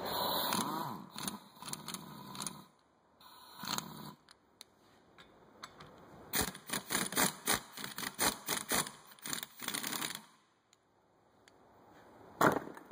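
Metal hand tools clicking and clattering as they are handled, with a quick run of clicks several times a second in the middle and one sharp knock near the end.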